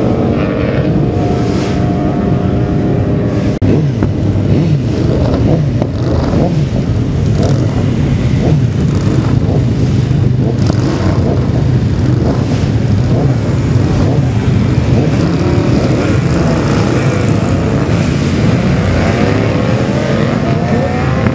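Racing superbike motorcycle engines at high revs going by at speed, the engine pitch sliding up and down as they pass.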